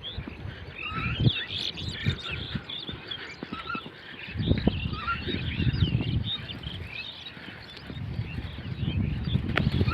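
Many small birds chirping at once, a dense run of short high chirps, with bouts of low rumbling underneath about four seconds in and again near the end.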